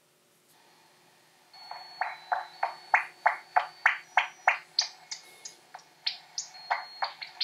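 Bat echolocation calls, which the Echo Meter app identifies as a common noctule, played back from the app as a rapid run of short, loud chirping pulses, about three to four a second. The pulses start about one and a half seconds in.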